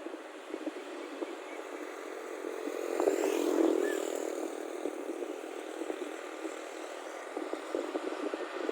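A motor vehicle passes close by with an engine note and rattling clatter. It swells to its loudest about three and a half seconds in, then fades.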